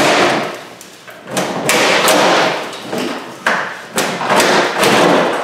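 Parts being pulled out of a Yugo's engine bay by hand: a run of sudden thumps, each followed by scraping and rustling.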